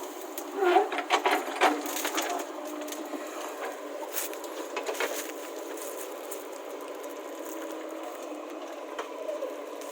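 JCB 3DX backhoe loader's diesel engine running steadily, with a burst of sharp knocks and clatter in the first two seconds and single knocks a few seconds later.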